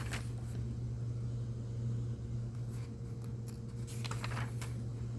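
Paper pages of a hymnal rustling and being turned a few times, over a steady low electrical hum.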